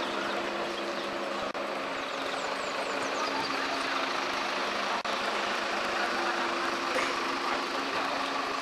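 A crane truck's engine running steadily, with an even hum.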